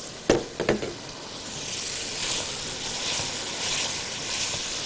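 Meat frying in a pan, a steady sizzle, with two short knocks within the first second.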